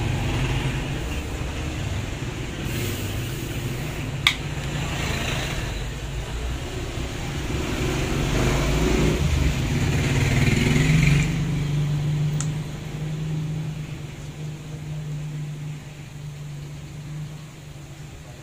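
A motor vehicle's engine running, a low steady rumble that swells about two-thirds of the way through and then fades away. One sharp click about four seconds in.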